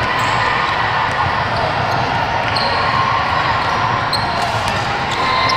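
A basketball being dribbled on a hardwood court during play, over a steady background noise.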